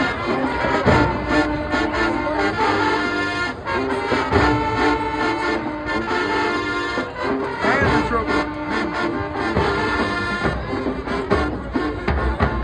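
High school marching band playing, brass to the fore, moving through a series of held notes and chords.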